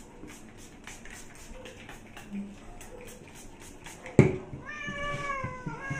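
A sharp thump about four seconds in, then a cat gives one long meow of just over a second that drops in pitch at the end.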